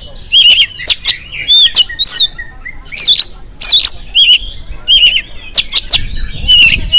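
Oriental magpie-robin (kacer) singing loudly and busily: a fast run of short, varied phrases, about two a second, mixing rising-and-falling whistles with sharp, harsh notes.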